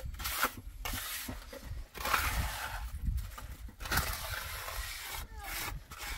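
Gloved hand scraping and rubbing wet cement mortar onto the base of a concrete-block wall, in a series of rough strokes about a second long with short pauses between them.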